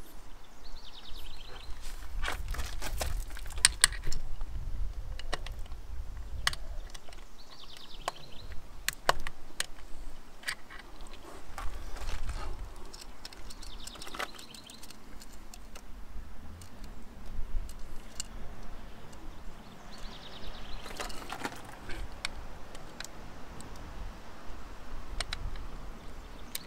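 Hand tools clicking and clattering against the metal of a motorcycle's carburettor and engine: scattered sharp clicks and taps over a low rumble from handling.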